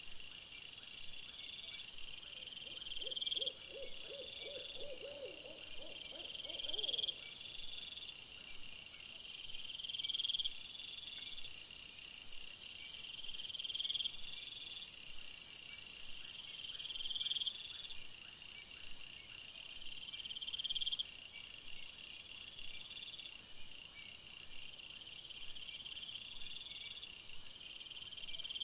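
Night chorus of insects: a short high trill repeating about every two and a half seconds over a thin steady hiss, with a brief lower, rapidly pulsing call a few seconds in.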